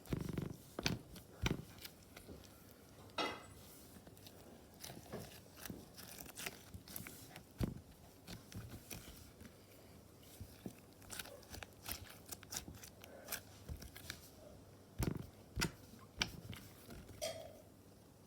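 Hands squishing and poking slime: scattered crackling clicks and small pops, a few louder snaps among them.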